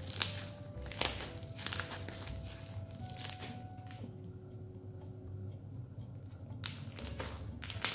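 Slime with small foam beads being squished and stretched by hand, giving scattered crackles and pops. The beads make it slightly crunchy.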